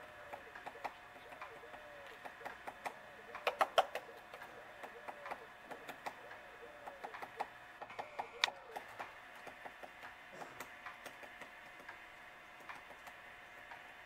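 Woodpecker pecking and chipping at tree bark: irregular sharp taps, with a quick loud flurry about three and a half seconds in and another hard strike about eight and a half seconds in.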